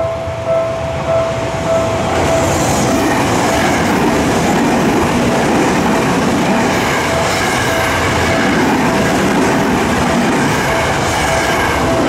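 A Tokyo Metro 7000 series electric train runs past at a level crossing: a steady noise of wheels and motors on the rails, building from about two seconds in. The crossing's warning bell keeps ringing about twice a second, half-buried under the train.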